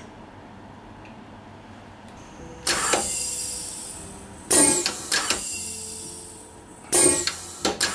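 Shoe repair heel press working on a stack of leather heel lifts. Three times, starting a few seconds in, it makes a sudden loud stroke that trails off over a second or two, the later ones with a quick second or third stroke close behind.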